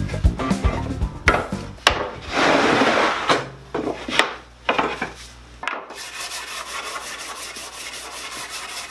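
Hardwood parts knocking and sliding on a workbench, with several sharp wooden knocks, then a hand sanding sponge rubbing along the edge of a wooden rail in quick, even strokes from about six seconds in.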